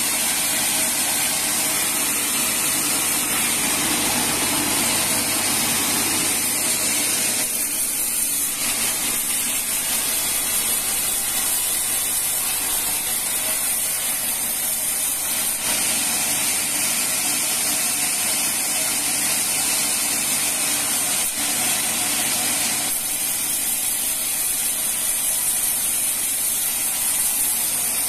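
Sawmill band saw running steadily and cutting through a teak log fed along its table, a constant loud hiss.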